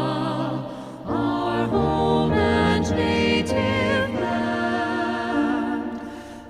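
Background music: a slow piece of sung, choir-like vocal music with sustained notes and changing chords.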